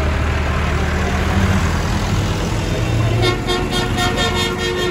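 Farm tractor's diesel engine running as it drives slowly past close by, a steady low rumble. A pitched, pulsing sound with several tones joins about three seconds in.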